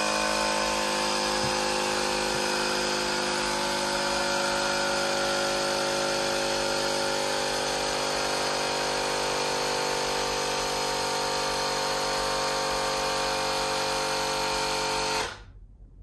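Cordless battery-powered tire inflator running steadily as it pumps up a bicycle tire. It stops abruptly about a second before the end.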